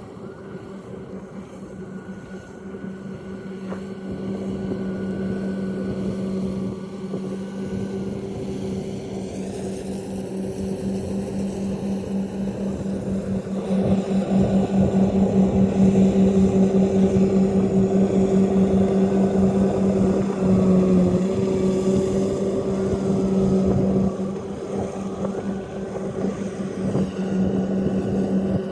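Rice combine harvester's engine running steadily with a constant hum, growing louder about halfway through as the machine works close by.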